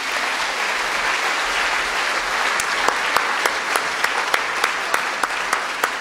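Audience applauding. From about halfway, single loud claps stand out from the mass at roughly three a second.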